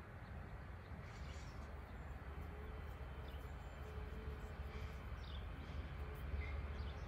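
Quiet rural outdoor ambience: a steady low rumble with a few faint, scattered bird chirps, and a faint steady hum coming in about two seconds in.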